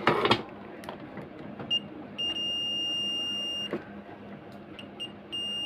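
Multimeter continuity beeper sounding as the test probes bridge a shorted component: a short chirp, a steady high beep of about a second and a half, two quick chirps, then another steady beep near the end, with light clicks of the probe tips. The beep signals a short, here found on the MOSFET gate resistors of a faulty inverter board.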